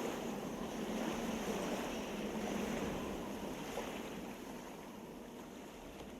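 Ocean surf washing steadily, a sea sound effect closing out a song and fading out over the last few seconds, reproduced through in-ear monitors.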